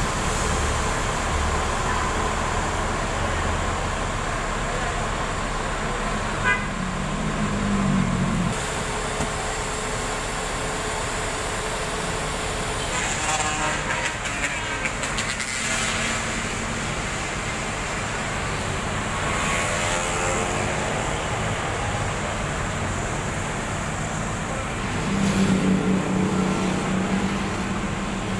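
Steady vehicle noise in a bus yard, with indistinct background voices. A short low-pitched tone sounds about eight seconds in, and a louder one lasts about three seconds near the end.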